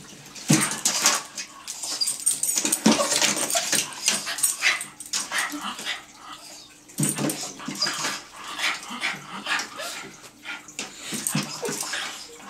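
Small terrier whining and snuffling at a fish tank, with short yips now and then, mixed with irregular taps and scratches of its claws and nose on the aquarium glass and cabinet.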